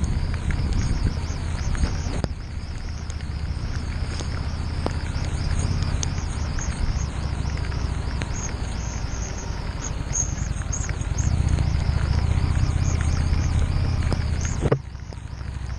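Harley-Davidson Street 750's V-twin engine running at low speed over a rough, muddy track, with a steady hiss of wind and noise on the mount. It picks up about two-thirds of the way through, then drops away suddenly near the end.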